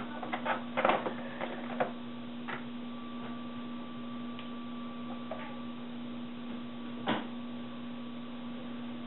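Plastic snap-together electronics kit pieces clicking and rattling as they are handled and pressed onto the grid board. There is a cluster of clicks in the first two seconds and one more click about seven seconds in, over a steady hum.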